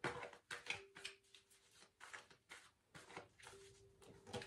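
Faint, soft rustles and flicks of a tarot deck being handled and shuffled in the hands, a string of brief strokes, with a faint steady hum coming and going underneath.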